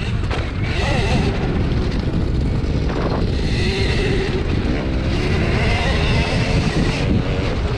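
Riding noise from a Husqvarna electric mini dirt bike on a dirt track: heavy wind buffeting on the camera microphone, with a wavering whine that rises and falls.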